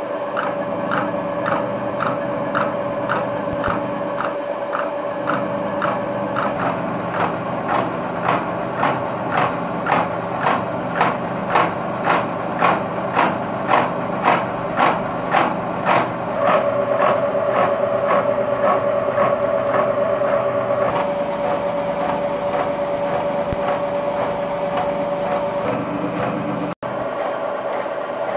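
Bridgeport-type milling machine running a disc cutter through spline recesses in a motorbike shaft. A steady machine tone carries a rhythmic pulse about twice a second that grows louder toward the middle, then settles into an even drone. The sound cuts out for an instant near the end.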